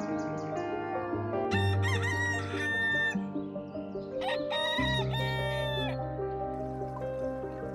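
A rooster crowing twice, each crow with a held high note, over steady background music.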